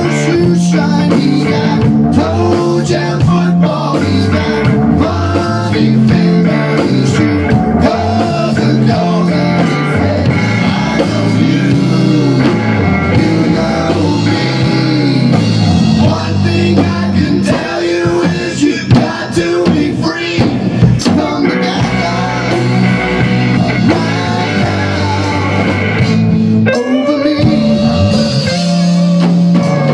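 Rock band playing live: electric guitar, electric bass and drum kit together in a steady, loud rock groove.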